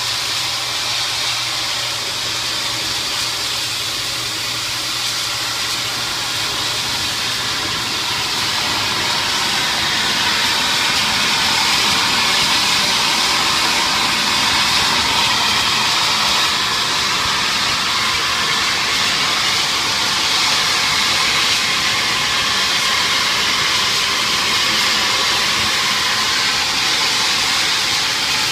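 Pressure washer spraying a high-pressure jet of water onto a tiled floor, a steady hiss with splashing, a little louder after about ten seconds.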